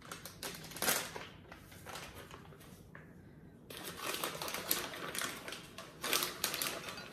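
A plastic bag of walnuts crinkling as it is opened, then crackling as a measuring cup is scooped into it, with walnut pieces rattling. The busiest crackling comes in the second half.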